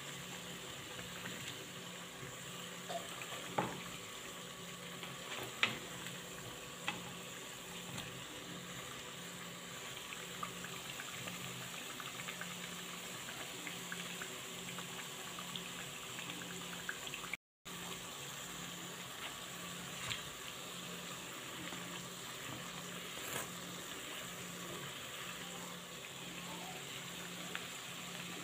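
Pieces of half-cake dough deep-frying in hot oil, a steady sizzle, with a few light knocks of a wooden spatula as the pieces are turned.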